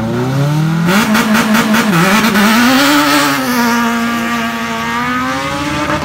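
Citroën Saxo S1600 rally car's four-cylinder engine revved high at the start line, then launching hard about a second in with a sudden burst of crackling noise. The note dips at an upshift around two seconds in, then holds steady and fades a little as the car pulls away.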